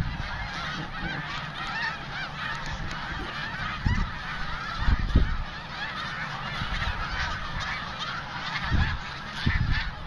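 A huge flock of snow geese calling nonstop, a dense chorus of overlapping honks. A few short low thumps come through about four, five and nine seconds in.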